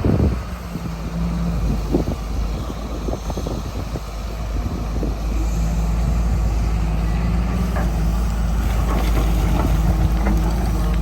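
John Deere 200LC excavator's diesel engine running steadily under working load, with a held hydraulic hum and a few scattered knocks. The engine note rises slightly partway through, and clanks grow more frequent near the end.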